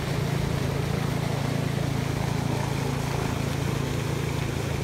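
Fountain jet splashing steadily into a pool, over a steady low hum.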